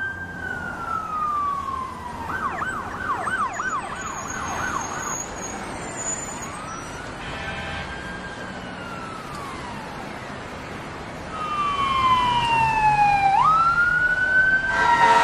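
Emergency vehicle siren cycling through its patterns: a slow falling wail, then a fast yelp at about two and a half cycles a second, then a slow rising and falling wail. Near the end it sweeps down and jumps sharply back up as it grows louder.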